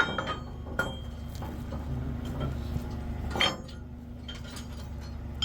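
Heavy steel parts of a lowbed trailer's neck clanking and clinking against each other as the neck is hooked up: a few sharp ringing knocks, the loudest at the start, just under a second in and about three and a half seconds in, over a steady low hum.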